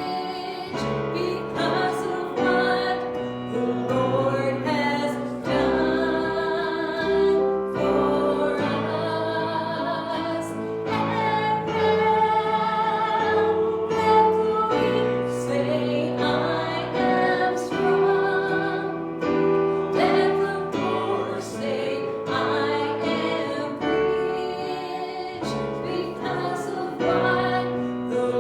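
Music: a choir singing sustained, slowly changing notes with vibrato over an instrumental accompaniment, in the manner of a gospel hymn.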